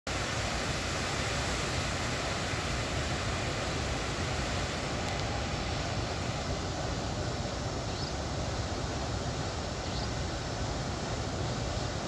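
Canal water pouring down a sloping concrete chute, a steady, unbroken rush of falling water.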